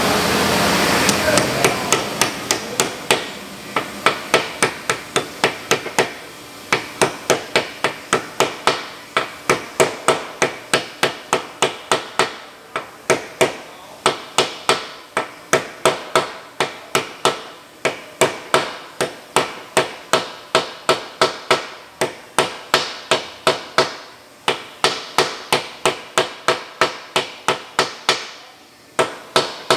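Hammer blows driving a new bearing into a Pöttinger Terra Disk disc harrow hub: sharp metallic strikes at about two to three a second, in runs with short pauses between them. A steady noise fades out over the first second.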